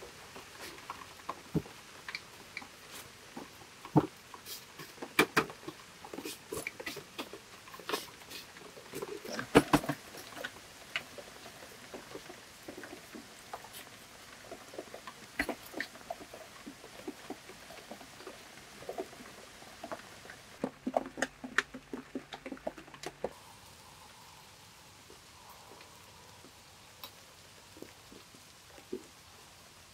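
Irregular light clicks, taps and rustles of a person handling boots and shifting about on a wooden pole floor and bench. The taps are busiest in the first ten seconds, come again in a short cluster a little past the middle, and give way to a faint even background near the end.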